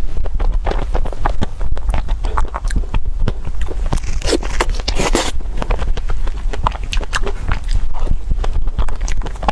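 Close-up eating sounds: crunchy food being bitten and chewed, a quick irregular run of crisp crackles with a couple of longer crunches about halfway through.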